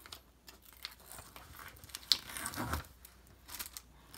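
Clear plastic protective film being peeled back and crinkled on a diamond painting canvas: a run of small crackles and rustles, loudest a little past the middle.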